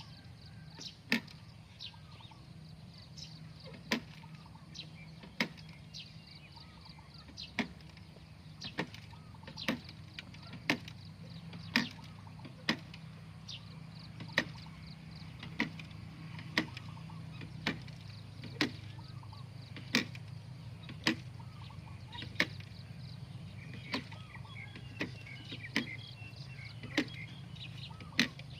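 A hand tool striking the ground over and over, about once a second and sometimes twice in quick succession, as moist soil is dug or hoed.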